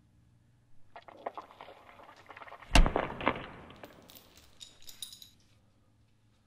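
A run of sharp knocks and thumps, then one sudden loud bang about three seconds in with a few more hits after it, and a brief bright clatter with ringing that dies away before the end.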